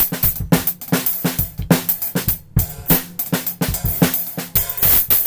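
Drum kit being played, with kick and snare strokes, breaking into a fast run of strokes near the end. The hi-hat sounds distorted, which the drummer puts down to the webcam's recording.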